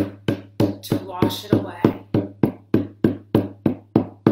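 Hand-held frame drum beaten in a steady, even pulse of a little over three strokes a second, each stroke ringing briefly.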